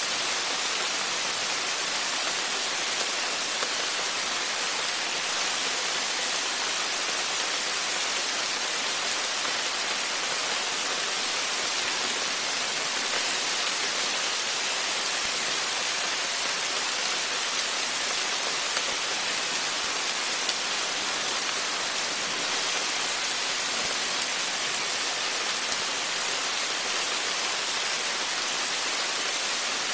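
Rain falling steadily on a porch and its surroundings: a dense, even hiss that holds level throughout.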